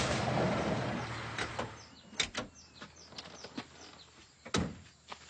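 A jeep's engine running, dying away over the first second and a half as it is switched off, then a few sharp clunks and clicks from its doors, with faint bird chirps behind.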